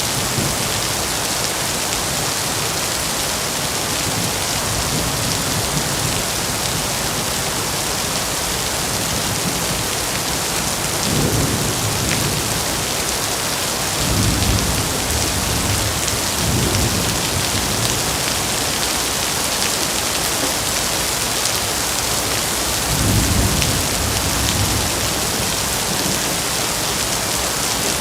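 Heavy rain falling in a steady, dense hiss, with a few deep low rumbles swelling up about a third of the way in, again around the middle, and once more later on.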